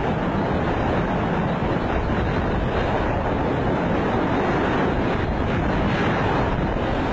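Loud, steady rush of wind over the microphone of a camera moving at speed through the air.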